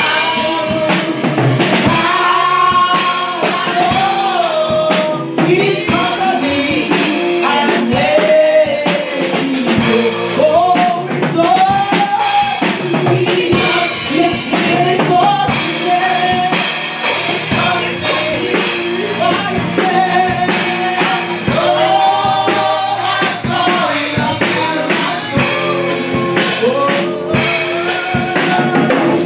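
A live gospel worship song: women singing into microphones over drums, continuous and loud.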